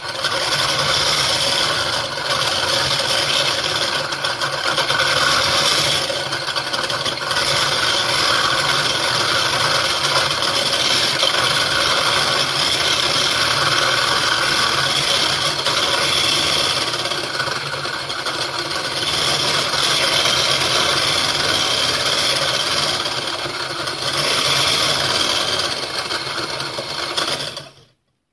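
Electric whisk running steadily in a plastic beaker, its wire whisk rattling against the sides as it beats egg white and sugar into meringue. It stops suddenly near the end.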